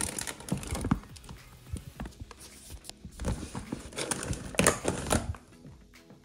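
Stiff zipper of a soft nylon cooler bag being dragged open in jerky pulls, with the bag's fabric rustling and a hand rummaging inside. The noise comes in two spells, the second louder, from about three seconds in.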